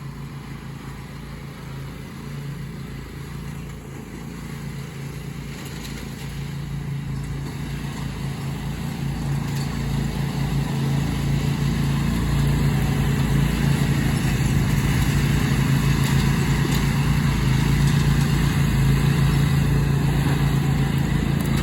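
Riding lawn mowers, a Cub Cadet and a John Deere, racing with their small engines running steadily, the engine hum growing gradually louder as they draw nearer.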